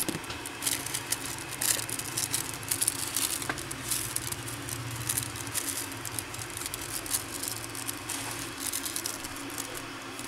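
Thin cigarette rolling paper rustling and crinkling as it is handled, with small irregular ticks and taps throughout, over a faint steady low hum.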